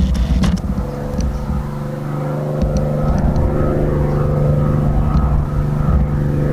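Single-engine piston warbird fighter flying toward the listener: a steady engine and propeller drone that grows gradually louder.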